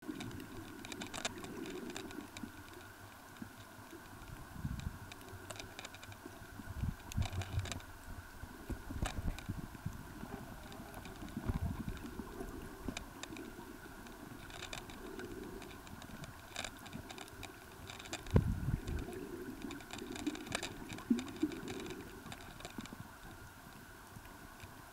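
Underwater sound picked up by a camera submerged over a coral reef: scattered irregular clicks and crackles, with a few low thuds from water movement against the camera.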